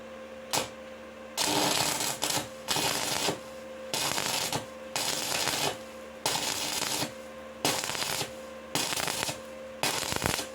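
Manual arc (stick) welding with an MR-3 electrode: the arc crackles and sizzles in about a dozen separate bursts of half a second to a second, broken off and restruck each time, as in stop-start (break-arc) welding of a pipe seam. A faint steady hum runs underneath.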